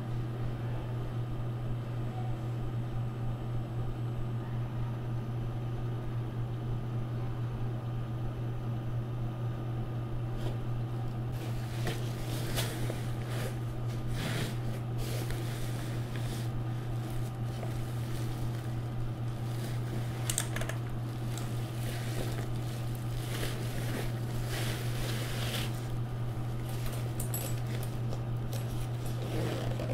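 A steady low hum throughout. About eleven seconds in it is joined by irregular rustles, clicks and scrapes of packaging being handled.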